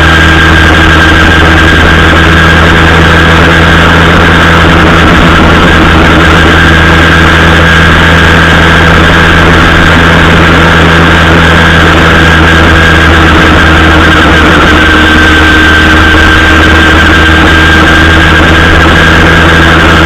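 Zeda Dio 80cc two-stroke engine on a motorized bicycle, with a banana expansion pipe, running loud at a steady pitch under constant throttle while riding. The engine is in its break-in period and held to a moderate speed.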